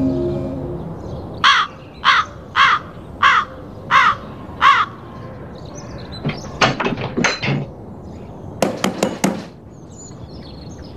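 A crow caws six times, about one call every half second, then falls silent. A little later, metal clicks and rattles as the padlock and iron latch on a heavy wooden door are worked, ending in a quick run of sharp clicks.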